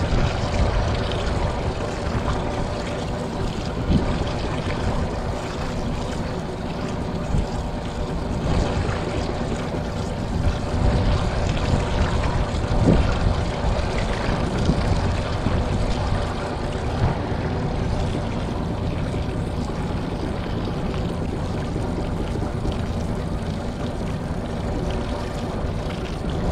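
A boat's outboard motor running steadily, with an even rush of noise over its hum.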